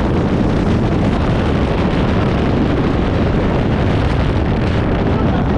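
Loud, steady rush of wind buffeting the microphone, with tyre and road noise from a moving car.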